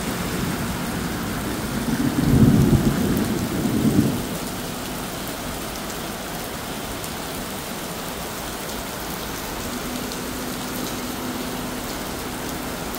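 Steady rain with a rumble of thunder about two seconds in that dies away about two seconds later.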